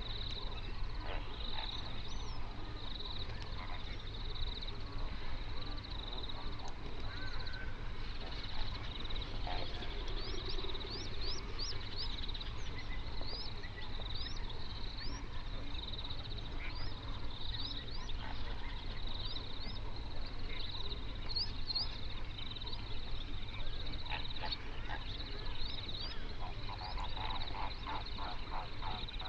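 Mixed wild bird calls: a high note repeating about once a second throughout, many quick rising chirps through the middle stretch, and near the end a burst of rapid goose-like honking from flamingos. A low steady rumble lies underneath.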